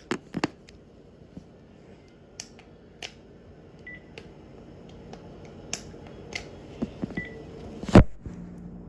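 Buttons being pressed on a Panasonic cordless phone handset: scattered plastic key clicks with two short high key beeps, and one louder knock near the end.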